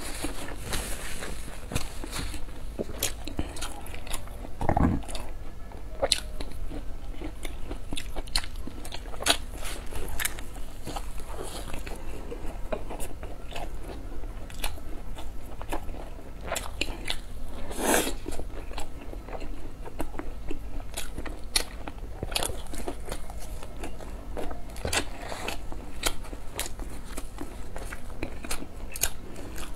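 Close-miked biting and chewing of fried flatbread, with irregular crunching and crackling clicks throughout.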